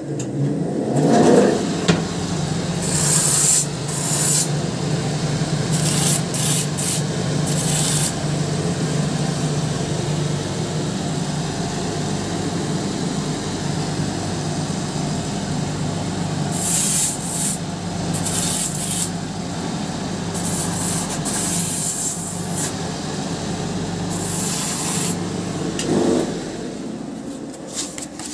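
Shoe-repair finishing machine's abrasive wheels spinning up about a second in and running steadily, with several spells of grinding as a sneaker's rubber sole is pressed against the wheel to trim and shape it. The motor winds down near the end.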